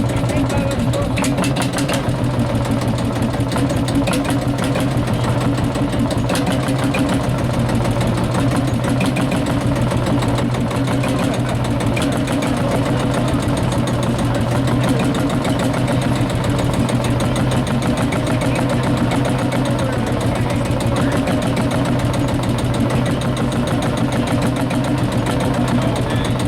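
One-cylinder tractor engine idling steadily, with faint voices in the background.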